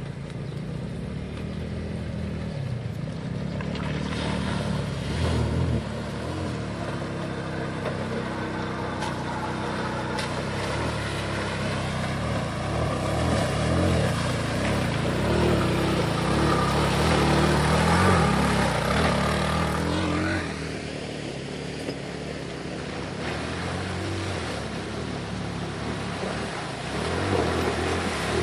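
A 250cc side-by-side UTV's engine running with changing revs as it drives through shallow river water, with water splashing from its wheels. It is loudest about two-thirds in, then eases off.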